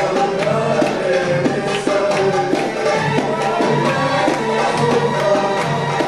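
Middle Eastern band music for belly dance: hand drums keep a steady rhythm under a melody line.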